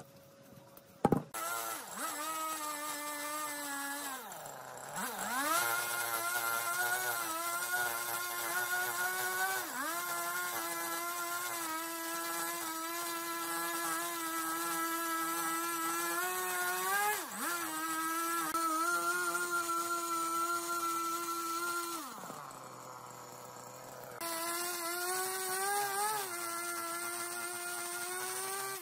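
Husqvarna two-stroke chainsaw cutting through a tree stump, running at high revs with the pitch sagging and recovering as it works through the wood. It drops to idle briefly around five seconds in and again for about two seconds past the twenty-second mark. A sharp knock comes about a second in, just before the saw starts.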